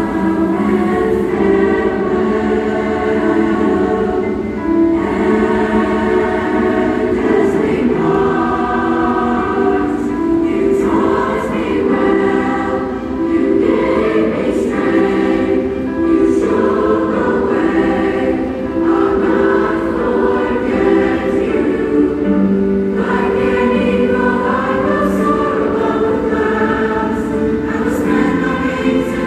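A choir of many voices singing a slow song, holding long notes that change about every second.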